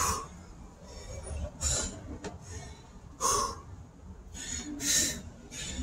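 A man breathing hard through his mouth after burpees and push-ups: a string of short, forceful breaths about one to one and a half seconds apart.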